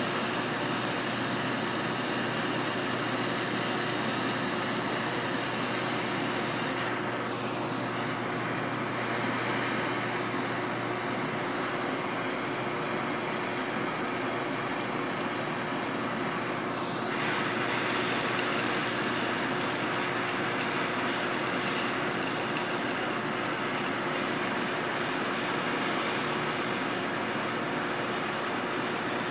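Propane torch flame burning with a steady hiss while it heats a copper pipe fitting for soldering. The hiss dips briefly twice, about 7 and 17 seconds in.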